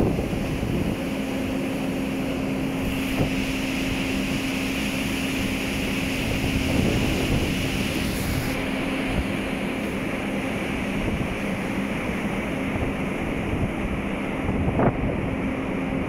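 Wind buffeting the microphone over the rushing wash of a large ship's wake, with the ship's machinery humming steadily underneath.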